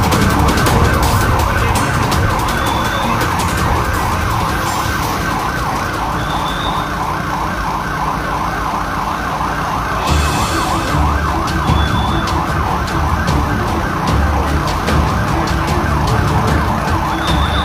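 Fire truck siren sounding a fast, continuous up-and-down yelp over a low engine rumble. The siren stops near the end.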